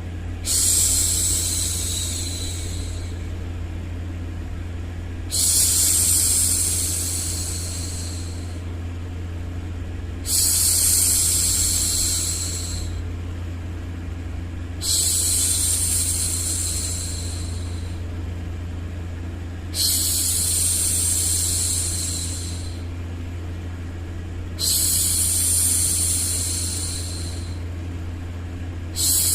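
A woman's voice hushing 'shhh' over and over, about every five seconds, each hush starting sharply and fading away. Under it runs a steady low background noise.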